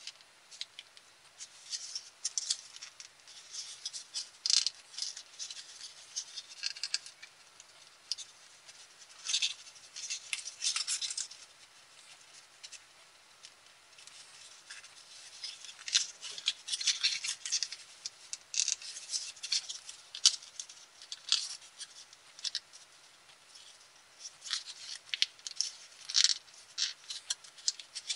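Colored copy paper being creased and shaped by hand into an origami dog: irregular spells of crinkling and small crackles, with a quieter pause near the middle.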